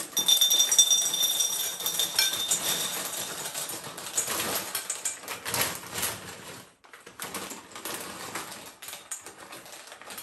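Dry pasta poured from its plastic bag into a bowl: a dense rattle of pasta pieces hitting the bowl and each other, loudest in the first couple of seconds, then thinner pours in spurts and a quieter trickle near the end.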